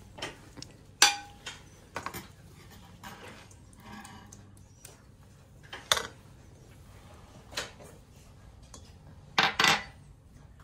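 Small glass prep bowls clinking and tapping against a stainless steel mixing bowl as spices and pastes are tipped in. The sharp clinks are scattered, with a loud one about a second in and a quick pair near the end.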